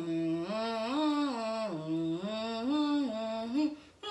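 A person humming a tune without words, holding notes that step up and down in pitch, stopping shortly before the end.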